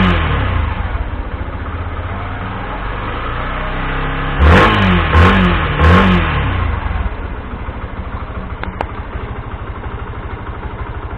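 Stock exhaust of a 2016 Yamaha FZi's single-cylinder engine being revved while the bike stands still. There is a throttle blip at the start, three short revs in quick succession about four to six seconds in, then steady idling.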